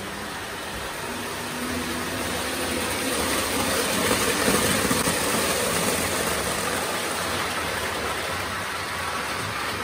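Lionel O-gauge toy trains running on three-rail tubular track: a steady rumbling clatter of wheels and motor that grows louder to a peak about four to five seconds in, then eases off.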